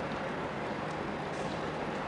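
Steady harbour background noise: an even rumble and hiss with a faint low hum and no distinct events.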